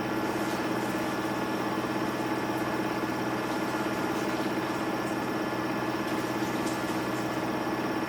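Samsung Eco Bubble washing machine running with a steady motor hum and a few held tones.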